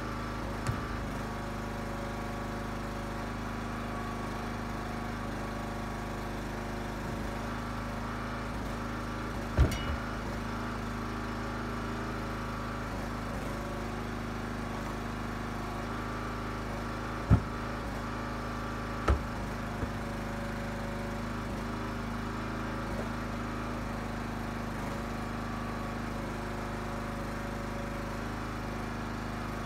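Huskee 35-ton gas log splitter's engine running steadily, its note sagging briefly several times as the wedge works through the ash blocks. Four sharp thuds stand out above it as split firewood pieces land in the pickup bed.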